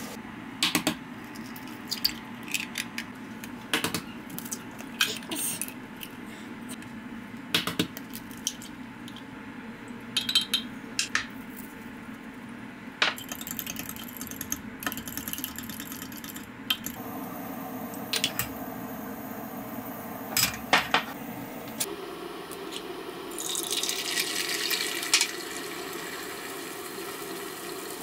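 Kitchen cooking sounds: a spatula scraping and knocking in a pot of thick sauce, then a utensil clinking against a glass measuring cup as eggs are beaten, over a steady low hum. About three-quarters through comes a hiss lasting a couple of seconds, as beaten egg goes into a hot frying pan.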